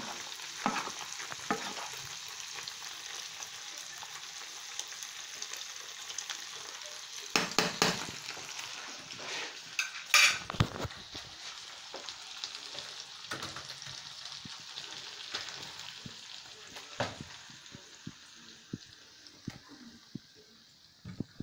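Food sizzling in a pan on an electric hob: a steady hiss that slowly fades toward the end. A few sharp knocks of handling about a third and half of the way through.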